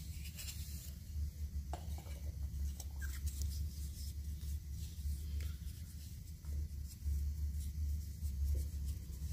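Hands rubbing and handling oiled mulberry-wood spoons: faint rubbing of skin on wood with a few light knocks of wood, over a steady low hum.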